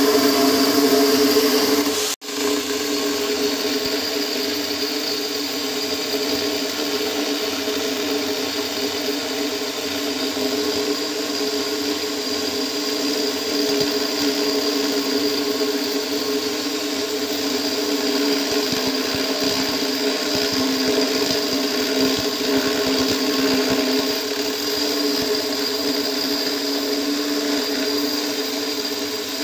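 Mastermax MX-801 angle grinder running steadily with a core bit, cutting a hole through a stone countertop, its motor whine steady throughout. The sound drops out for an instant about two seconds in.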